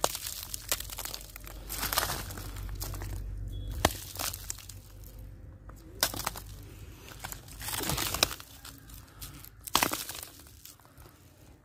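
Lumps of coal being handled and pointed at: irregular clicks, knocks and crunching scrapes of coal pieces, with swells of rustling handling noise. The sharpest knocks fall just before 4 s and just before 10 s in.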